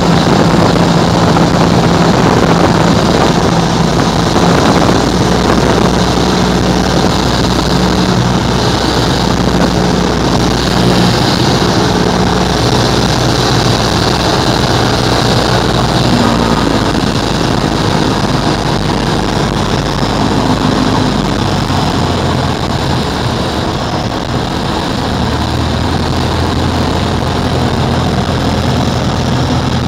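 Cessna 172SP's four-cylinder Lycoming engine and propeller droning, heard from inside the cabin. The engine note steps down in pitch about halfway through and again near the end, as power comes back for the landing approach.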